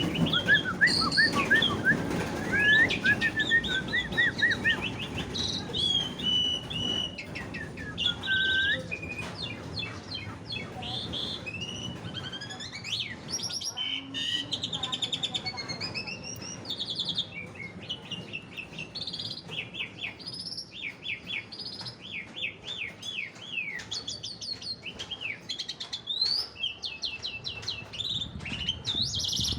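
A young Asian pied starling (jalak suren) singing a long, varied song of whistles, chatters and fast trills, rich in the borrowed phrases that keepers call its 'material'.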